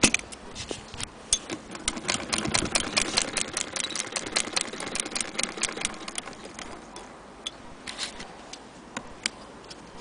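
Antique Husqvarna Freja hand-crank sewing machine stitching: a fast run of sharp mechanical clicks that thins out about seven seconds in, followed by a few lone clicks.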